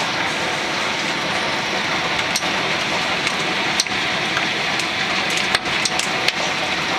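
Heavy hail coming down as a steady, dense patter, with several louder, sharp clicks of single hailstones striking something hard.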